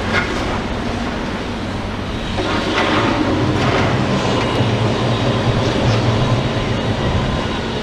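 Demolition excavator engine running under load, getting louder about two and a half seconds in as it works, with a few metallic clanks and scrapes.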